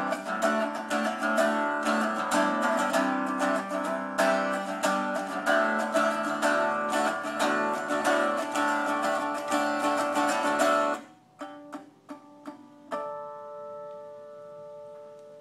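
Copper-bodied electric guitar played unplugged: quick picked and strummed playing that stops abruptly, a few single plucks, then one final chord left ringing and slowly fading.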